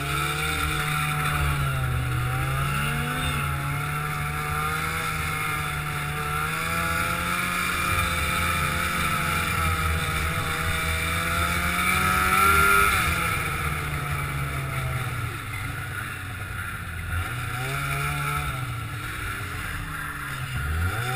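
Snowmobile engine running under way, its pitch rising and falling with the throttle over a steady hiss. It is loudest about two-thirds of the way through, and near the end it drops off briefly and picks up again.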